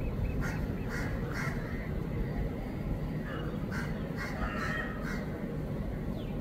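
Birds calling in a string of short, harsh calls, several in quick succession, over a steady low background rumble.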